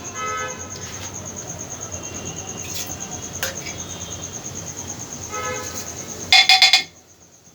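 Cumin seeds sizzling in hot oil in a pressure cooker, a steady hiss. Near the end a brief loud pitched sound comes in, and then the sound cuts off abruptly.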